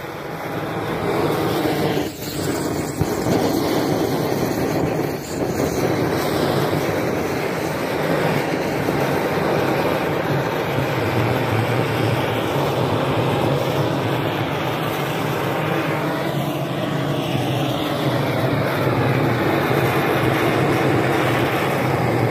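A motor running steadily under a broad, even hiss, with no breaks, while a hose-fed wand tool is worked at the skid-steer's lift-arm pivots.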